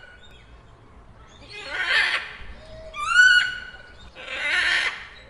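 A large bird calling: a clear call that rises in pitch, then a harsh, raspy call, the pair given twice.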